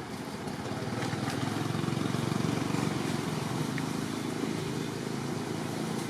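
A motor vehicle's engine running steadily, growing louder about a second in and easing off slightly after about three seconds.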